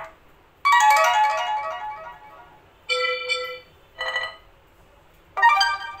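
Stock Android notification tones on a Nokia G21, previewed one after another through the phone's speaker. There are about four short electronic chimes, each a different tune. The first, about half a second in, is a longer cascading chime. Shorter ones follow around three, four and five and a half seconds in.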